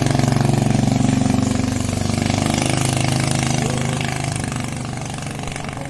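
Motorboat engine running steadily at speed, fading as the boat moves away.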